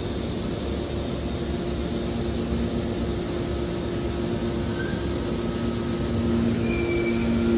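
Hydraulic scrap metal baling press running: a steady hum from its motor and hydraulic pump with a low rumble underneath, the hum growing louder near the end.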